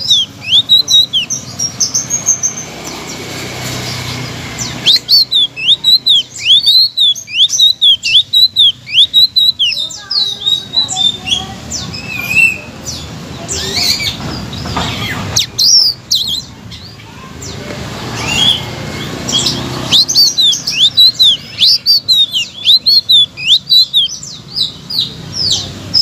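Caged selendang biru songbird singing loudly: runs of quick, repeated arched chirps, two to three a second, broken in the middle by a more varied run of notes.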